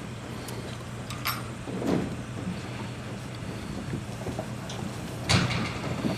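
Stock truck engine idling as a steady low hum, with scattered clicks and knocks and one louder bang about five seconds in, as sheep are loaded.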